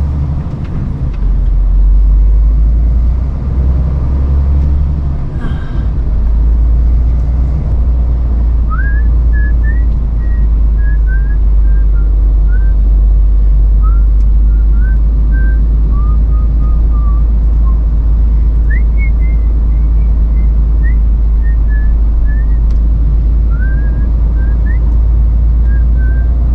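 Lorry's diesel engine running with a steady low drone, heard from inside the cab, with a single knock about five seconds in. From about eight seconds on, a person whistles a wandering tune of short sliding notes over the engine.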